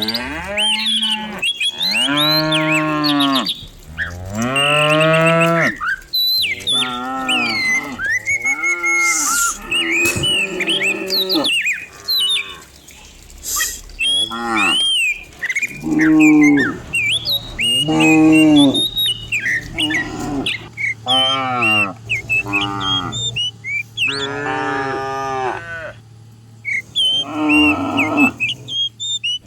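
A herd of cattle mooing, call after call, several cows at once with calls overlapping, each moo a long pitched bellow that bends in pitch.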